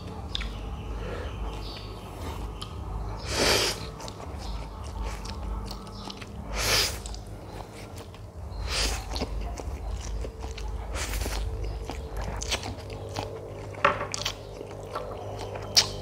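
A person eating noodles and sardines close to the microphone: chewing, with several loud, short mouth sounds a few seconds apart. A steady low hum runs underneath.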